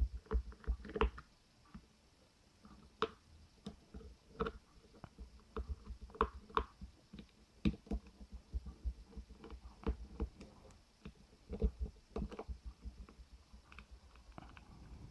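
Small screwdriver turning the tiny screws out of a Tamagotchi's plastic case: irregular soft clicks, taps and scrapes of metal on plastic, with short pauses between them.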